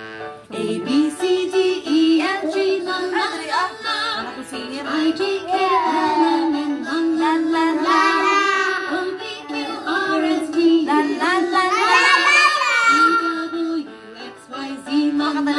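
A young boy singing into a corded microphone played through a small portable Bluetooth karaoke speaker, over a backing music track, with a woman singing along. The singing starts about a second in.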